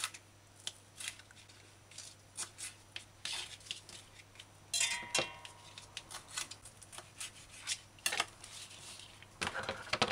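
Kitchen knife slicing a green bell pepper on a plastic cutting board: irregular soft taps and clicks of the blade meeting the board, with a louder clatter about five seconds in.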